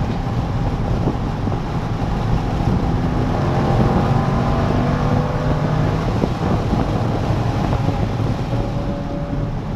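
Chevrolet C5 Corvette Z06's LS6 V8 engine running while the car is driven, its pitch rising and falling, under heavy wind noise on the microphone.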